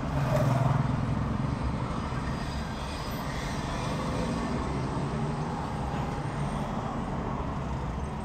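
Steady low rumble of vehicle noise heard inside a car's cabin.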